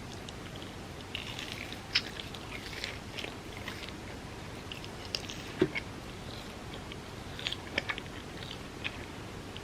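A person eating: biting and chewing, with scattered wet mouth clicks and a few sharper smacks, over a steady hiss.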